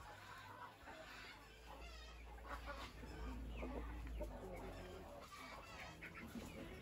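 A flock of Dominant Brown D-102 breeder chickens clucking, many short calls from several birds overlapping.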